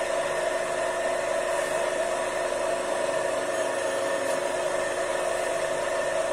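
Electric motor of a homemade rail-riding grinding jig running at a steady speed and spinning its abrasive disc: a steady hum with a whine.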